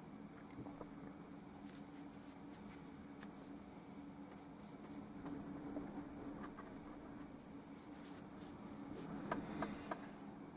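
Faint scratching and light taps of a paintbrush working oil paint on canvas and palette, over a steady low hum, with a short run of sharper taps near the end.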